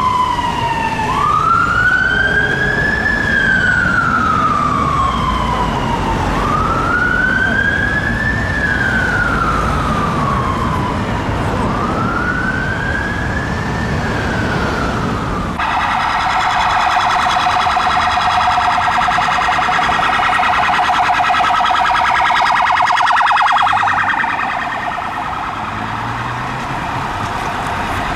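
Fire engine siren on a slow wail, rising and falling about every five seconds over low traffic rumble. About halfway through it is suddenly replaced by an unmarked police car's siren, a fast, rapidly wavering tone that grows a little fainter near the end.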